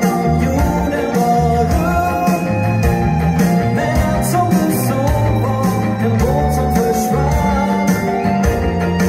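A live band playing a pop-rock song: a lead on electric guitar, keyboard and bass over a steady beat, with singing.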